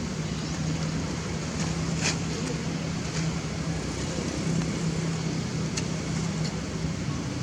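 Steady outdoor background noise with a continuous low hum, broken by a few brief, sharp high-pitched sounds.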